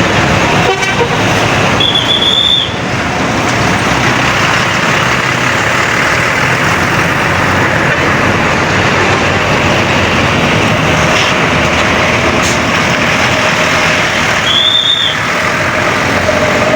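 Bus engine and road noise, steady and loud, with two short high squeaks, one about two seconds in and one near the end; no horn sounds.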